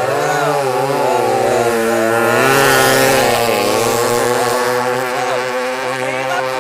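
Shallow-water racing boat engines running hard at high revs, their pitch rising and falling as they are throttled. The sound swells loudest about halfway through.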